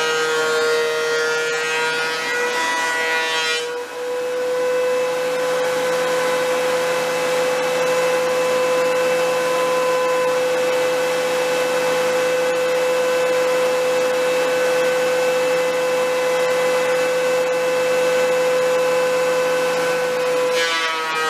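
DeWalt benchtop thickness planer running as boards are fed through it: a loud, steady high whine over a rushing hiss. The tone shifts about four seconds in and again near the end.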